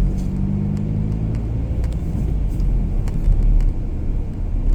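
Engine and road rumble heard from inside a moving vehicle, steady and low; the engine's hum is clearest in the first couple of seconds and then sinks into the general rumble.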